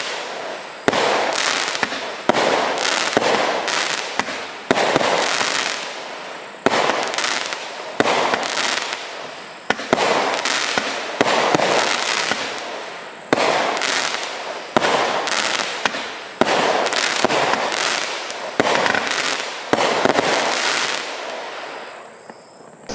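Consumer firework barrage (the Dynamite Barrage Pack) firing shot after shot, about one a second, each a sharp bang followed by a fading crackle. The shots die away near the end.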